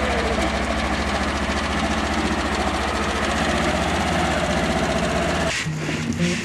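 An engine running steadily with an even low pulse, cutting off suddenly near the end.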